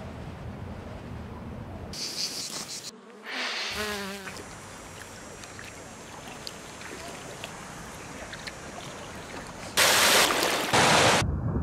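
Insects buzzing over a steady outdoor hiss, followed by a loud rush of white water in a mountain torrent starting about ten seconds in.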